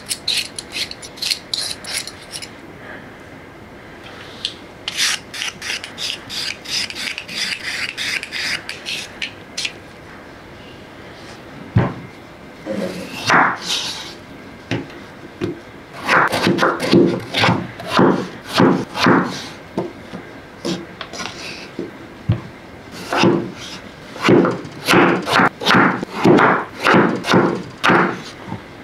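Hand peeler scraping the skin off a raw potato in quick strokes, then a kitchen knife slicing through raw potatoes and knocking on a wooden cutting board in runs of crisp chops, about two or three a second.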